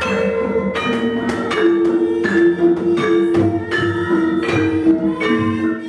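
Javanese gamelan playing a palaran: bronze kettle gongs and metallophones struck in a steady beat, each stroke ringing on. Over it a girl's sung voice, amplified through microphone and loudspeaker, holds long notes that step down in pitch about a second and a half in.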